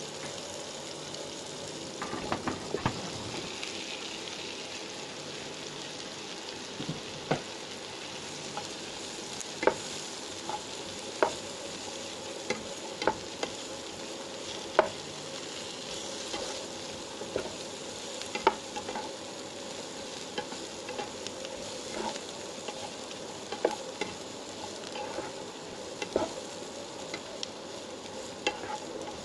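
Tempeh cubes with sliced garlic, shallots and chilli frying in oil in a nonstick wok, a steady sizzle, while a nylon spatula stirs them and knocks against the pan in irregular sharp clicks.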